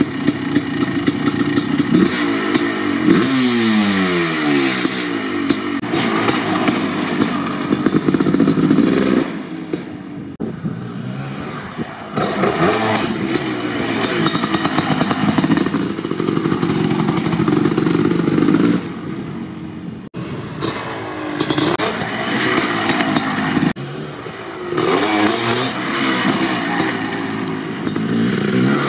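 1990 Kawasaki KX500's 500cc two-stroke engine with an FMF Gnarly expansion chamber, revving up and falling back, then running hard at high revs as the bike is ridden. The throttle is chopped off a few times along the way.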